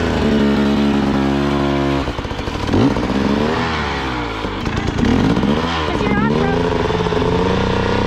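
Dirt bike engine running, idling steadily at first, then revved up and down several times from about two seconds in.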